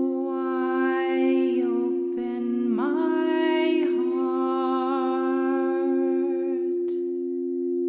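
A voice humming long wordless tones, sliding up into the note twice, over the steady sustained ring of a singing bowl. The humming stops about two-thirds of the way through, leaving the bowl ringing, with a small click near the end.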